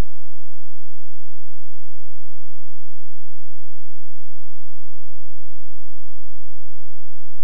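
Steady mains hum and hiss from VHS playback, with a faint low swell under it that grows toward about six seconds in.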